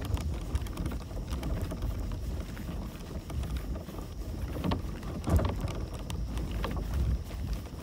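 Kayak paddle dipping and splashing in the water, with a couple of louder splashes a little past the middle and wind rumbling on the microphone throughout.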